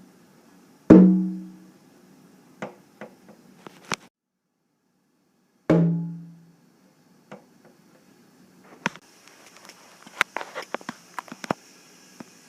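A drum-like thump with a short low ring, struck twice about five seconds apart, with a few light clicks after each. Later a faint steady hiss sets in under a quick run of clicks and taps.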